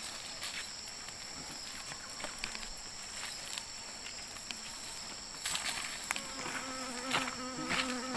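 Steady high-pitched chorus of forest insects, with scattered light clicks and rustles from a nylon gill net and pebbles being handled. A low buzz joins about six seconds in.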